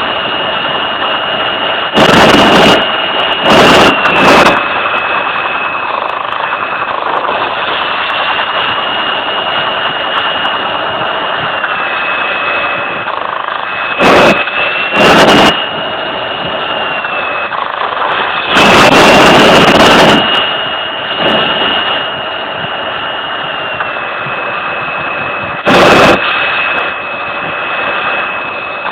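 F-16 fighter jet engine running with a steady high whine that shifts slightly up and down in pitch, broken several times by short, very loud bursts of rushing noise.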